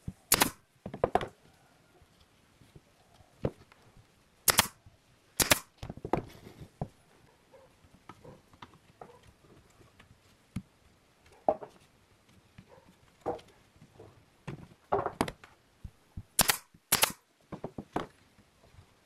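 Pneumatic brad nailer firing brads into pine slats of a lamp frame: five sharp shots, one about half a second in, two around 5 seconds and a close pair near the end, with lighter knocks and taps of the wood being handled in between.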